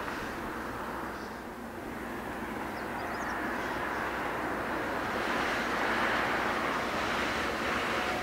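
Distant jet engines of a taxiing Boeing 737-700 (CFM56-7B turbofans) running at low thrust: a steady roar that swells a little in the last few seconds.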